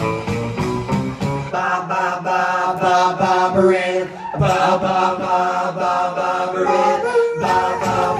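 Pop music with several voices singing together in harmony, breaking off briefly about four seconds in.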